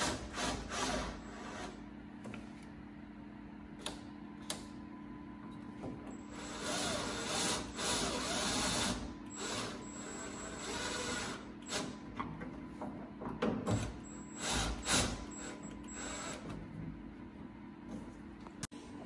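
Cordless drill boring into a metal clamp on a speaker-mount bar, running in several spurts of a second or more with pauses between. A couple of sharp clicks come near the start.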